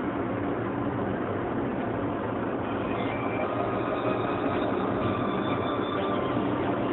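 Steady engine and tyre road noise inside the cabin of a moving Hyundai i10.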